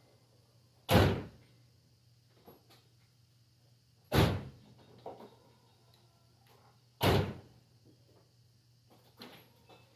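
Three heavy thumps about three seconds apart, each dying away quickly, like a door being slammed.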